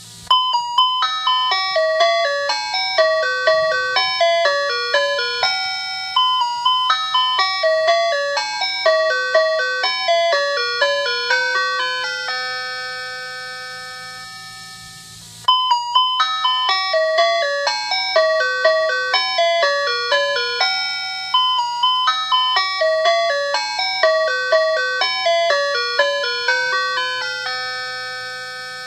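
Emergency alert alarm: a bell-like chime melody of quick notes, played through once and repeated from about halfway, each pass fading away toward its end, over a low steady hum.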